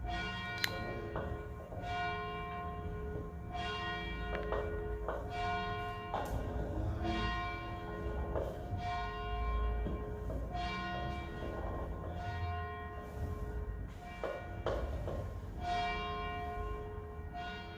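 Church bells being rung, struck every second or two, each strike ringing on. At least two bells of different pitch sound in turn.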